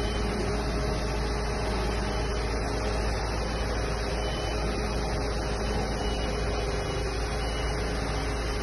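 Aerial ladder fire truck's engine running steadily with a low hum while its boom and rescue basket move.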